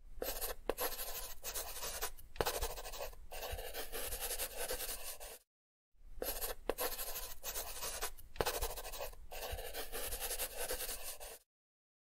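Marker pen scratching across a surface as it writes, in strokes with small ticks, in two runs of about five seconds with a short break between.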